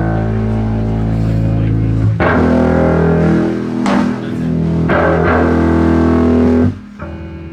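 Electric guitar and bass through amps playing loud held chords. A new chord is struck about two seconds in and re-struck a couple of times, then cut off sharply about a second before the end, leaving a quieter ring of amp noise.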